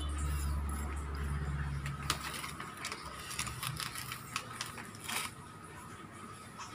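Small scattered clicks and light scraping taps of a plastic spoon scooping crushed graham crackers and sprinkling them onto donuts on a plate. A low hum stops about two seconds in.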